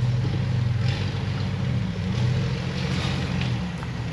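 Off-road vehicle's engine running at low revs while crawling over an obstacle, the throttle easing off and coming back a couple of times.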